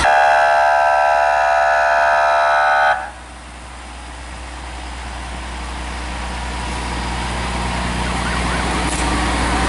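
A fire truck's air horn blasts as a steady multi-tone chord for about three seconds and cuts off suddenly. Then the engines of the passing fire trucks run, growing gradually louder.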